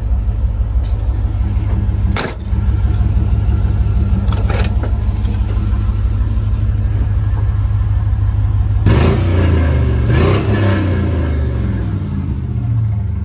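Car engine idling steadily, then revved up and down a few times from about nine seconds in. A single sharp clunk about two seconds in.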